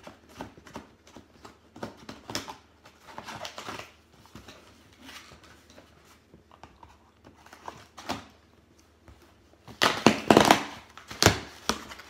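Cardboard shipping box being opened by hand: small scratches and clicks as the packing tape is picked at, then louder ripping and rustling as tape and cardboard flaps are pulled open about ten seconds in.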